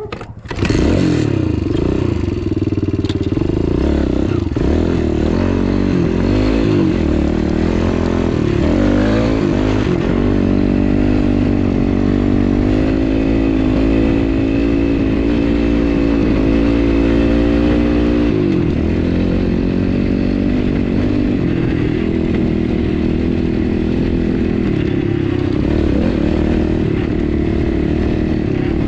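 Dirt bike engine that picks up sharply about a second in, then runs with the revs rising and falling as the bike is ridden, and runs steadier after about eighteen seconds.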